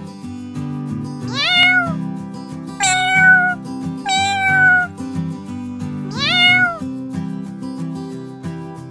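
A domestic cat meowing four times, each call rising then falling in pitch, over background music.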